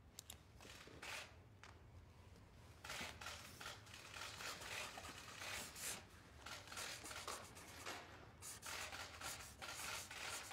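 A pen writing on paper: faint, irregular scratching strokes of a signature, starting about three seconds in.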